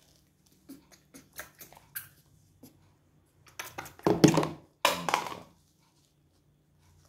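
Small wet clicks of a baby monkey sucking at the teat of a small plastic feeding bottle, then two louder bursts of rustling handling noise about four and five seconds in, the louder of the sounds.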